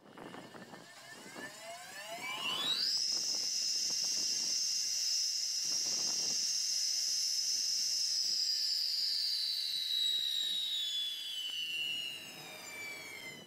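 Cedima CTS 56 wet stone-cutting table saw with its diamond blade spinning: a high whine rises over the first few seconds as the blade comes up to speed, holds steady, then falls in pitch over the last few seconds as the blade runs down after switch-off.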